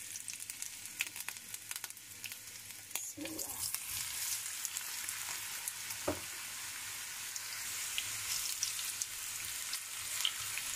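French fries frying in hot oil: a steady crackling sizzle that grows fuller after about three seconds, with a few sharp clicks.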